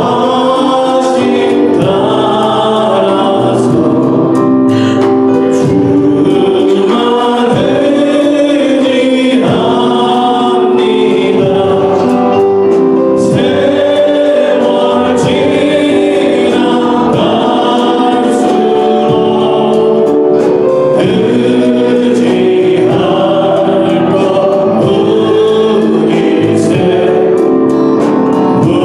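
Live Korean worship song: a male lead singer with a group of backing singers, accompanied by a band with acoustic guitar, electric guitar and drums. The music plays steadily and loudly throughout.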